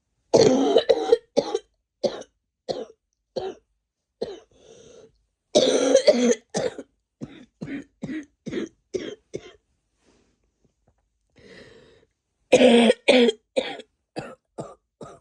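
A sick person's coughing, in three fits: each opens with a few loud coughs close together and trails off into a string of shorter, weaker coughs.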